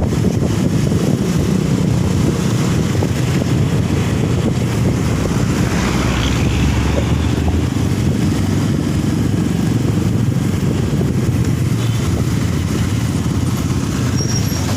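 Steady rumble of a motor vehicle on the move, engine and road noise together, with a brief swell of higher noise about halfway through.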